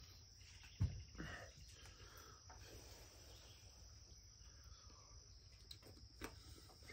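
Faint steady high-pitched insect drone, with one soft thump about a second in as a glass hot sauce bottle is set down on the table.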